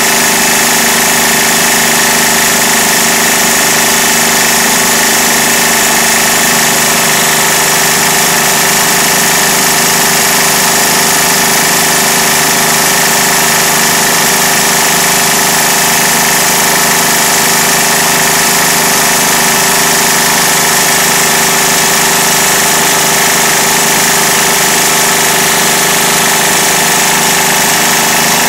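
Hatz E95 air-cooled diesel engine running steadily and loudly at an even speed.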